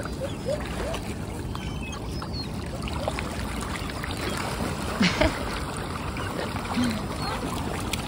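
Water splashing and churning as a dense flock of whooper swans, mallards and coots paddles and jostles, with short bird calls throughout and a louder splash about five seconds in.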